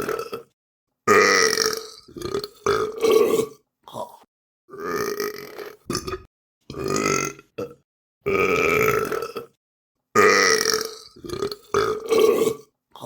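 A run of human burps, about a dozen, one after another with short silent gaps between them, some long and drawn out, others short.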